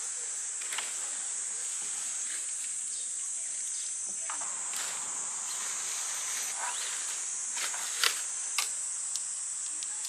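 Steady high-pitched insect buzzing, with scattered rustles and clicks from nylon tent fabric and poles being handled as a dome tent is struck; two sharper knocks about eight seconds in.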